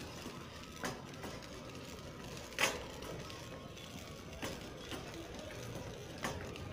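A shopping cart rolling over a hard store floor, with a few sharp clicks and rattles over a steady background hum of the store.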